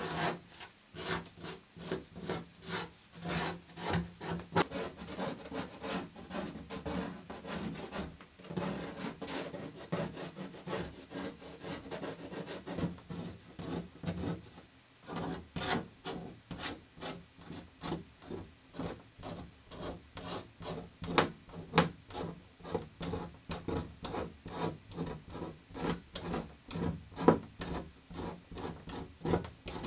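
Fingers rubbing and scraping at a painted panel, working off a torn paper layer, in quick repeated strokes about two a second with a couple of short pauses.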